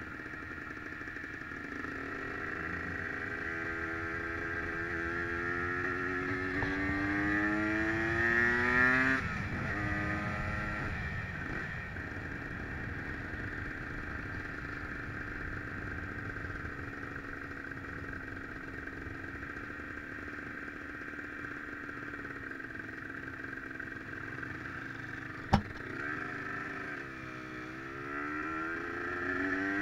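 Aprilia RS 125's two-stroke single-cylinder engine heard from the rider's seat while under way: it revs up with the pitch rising over several seconds, drops sharply as the throttle closes, then runs steadily. Near the end a single sharp click is followed by a dip in the engine and another rising rev.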